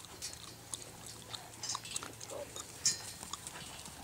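A horse trotting on a soft dirt arena: faint, irregular soft hoof thuds and small clicks of tack, with one louder brief rush of noise about three seconds in.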